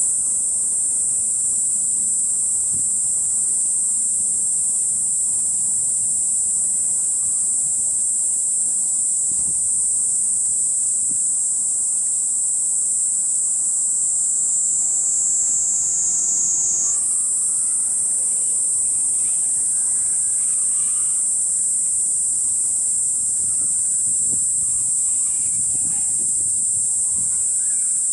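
Kaempfer cicada (Platypleura kaempferi) shrilling continuously in a high, steady buzz. About two-thirds of the way through, its pitch sags slightly for a couple of seconds and then snaps back up.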